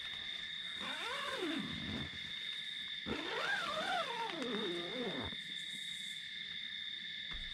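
Night insect chorus, a steady high trill, with two long animal calls from a wild animal: the first, about a second in, rises and falls once; the second, starting about three seconds in, wavers up and down several times.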